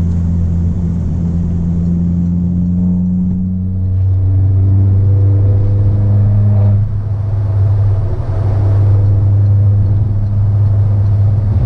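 Peugeot 308 THP's turbocharged four-cylinder engine and exhaust heard from inside the cabin: a steady low drone, then the engine pulls under throttle with its pitch rising for a few seconds. A brief dip about seven seconds in, like a gear change, is followed by a steady drone again.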